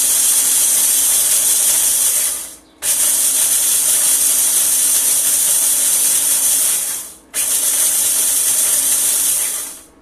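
Small electric food processor pulverizing corn flakes, run in three stretches with two brief stops, about two and a half and seven seconds in. A steady motor hum sits under the loud noise of the flakes being chopped.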